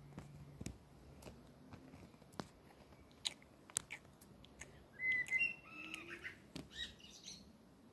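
Plastic toy horse figures knocked and tapped on a wooden floor, a scatter of sharp clicks. About five seconds in comes a short run of high chirping squeaks that bend up and down.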